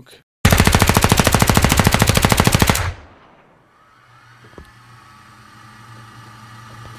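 Machine-gun burst sound effect: a rapid, regular volley of shots lasting about two and a half seconds, which then drops to a faint hum.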